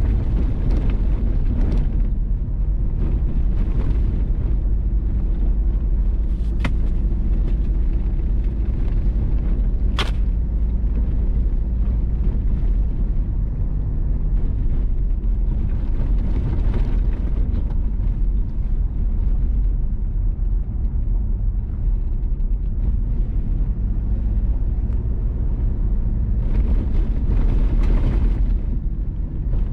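Vehicle driving on a gravel road: a steady low rumble of engine and tyres on the loose surface. Two sharp clicks sound about six and ten seconds in.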